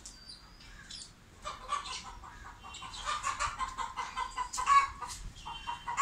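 Chickens clucking in short, repeated calls, growing busier about a second and a half in, with a few thin, high chirps mixed in.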